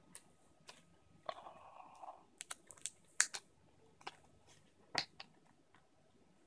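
Blu-ray steelbook and its paper slip being handled: scattered sharp clicks and taps, with a short scraping rustle about a second in.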